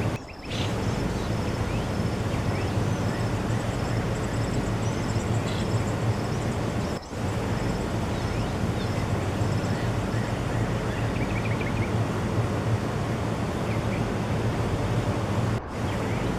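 Steady rushing noise with faint, high bird chirps and twitters over it. The noise dips out briefly twice, about 7 seconds in and near the end.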